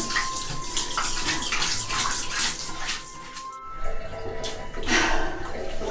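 Water spraying from a handheld shower head as a cat is rinsed in a bathtub, with background music; the spray drops out for a moment a little past halfway.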